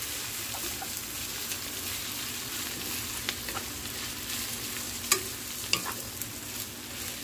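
Yakisoba noodles, cabbage and carrot sizzling in an oiled pan as a wooden spatula stirs and turns them, with a few sharp knocks of the spatula against the pan, the loudest about five seconds in.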